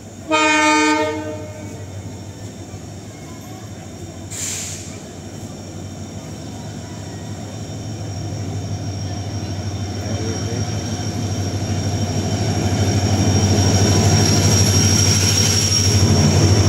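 Train locomotive horn sounding one loud blast about a second long near the start, followed by a brief hiss a few seconds in. The train's rumble then grows steadily louder as it approaches and passes beneath, with a high steady whine rising over it in the second half.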